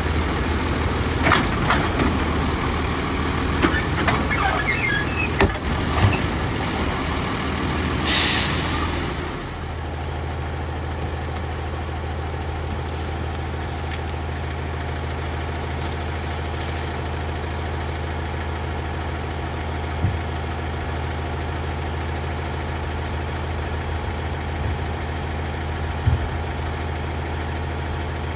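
Autocar ACX garbage truck with its Heil automated side-loader arm working, with knocks and clunks as the cart is handled. About eight seconds in comes a short burst of air hiss. The diesel engine then drops to a steady idle, with a couple of faint clicks.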